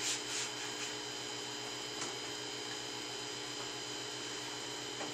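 Steady electrical hum made of several constant tones, low and high, over a faint hiss, with two short hissy puffs in the first half-second.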